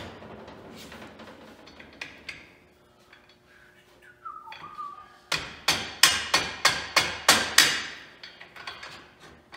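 A quick run of about nine hammer blows on steel, roughly four a second, fitting a Ford Model T radius rod to the rear axle. Lighter knocks and clinks of metal parts come before it, with a short squeak just before the hammering.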